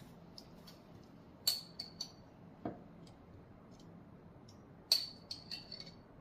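A spoon clinking against a glass jar or dish while jam is scooped and spread: a few light clinks, the two loudest with a brief ring, about one and a half seconds in and near the end.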